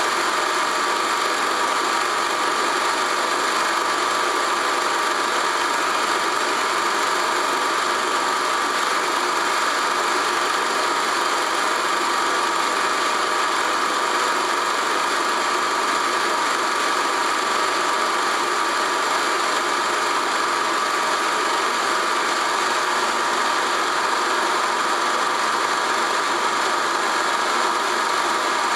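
Film projector running steadily: an even mechanical whirr with a constant high hum, and no other sound over it.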